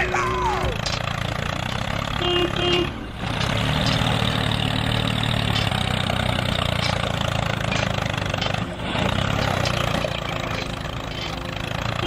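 Heavy engine running steadily, a truck or excavator engine sound for a toy tracked excavator crawling onto a ramp, with two brief drops about three seconds in and near nine seconds. A short falling tone sounds at the very start.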